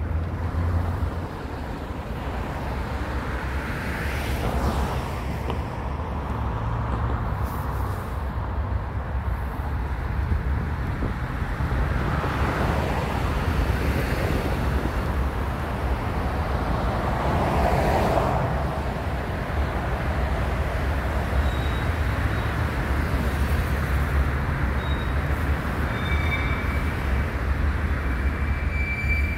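Outdoor street ambience: a steady traffic rumble with wind on the microphone, and a few vehicles swelling past and fading.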